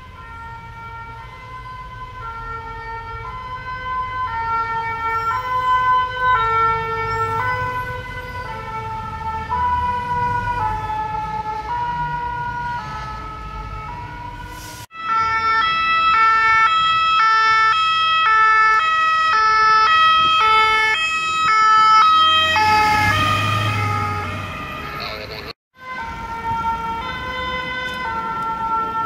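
French two-tone emergency vehicle sirens, the alternating high-low 'pin-pon', with engine and traffic rumble underneath. The siren grows louder over the first half. After a sudden cut a louder, closer siren sounds, and a rush of engine and road noise comes as a vehicle passes a little after three-quarters of the way through.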